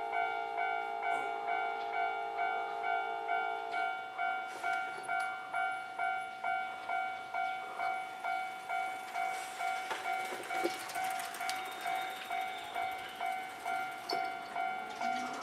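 Japanese railway level-crossing alarm dinging steadily about twice a second. A second, lower bell tone rings with it until about four seconds in. Just before the end a rising whine comes in as a train approaches.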